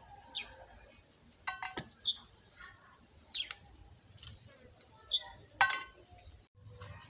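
Birds chirping: short calls that fall slightly in pitch, repeated every second or two. A few sharp knocks or clicks sound over them, the loudest a little before the end.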